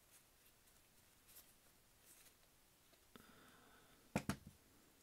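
Quiet handling of small ratchet parts and a small screwdriver, with faint scratches and ticks, then two sharp metallic clicks a little after four seconds in, the loudest sound.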